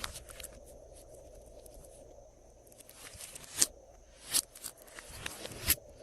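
Hands working slime: quiet handling at first, then several short, sharp crackling pops in the second half.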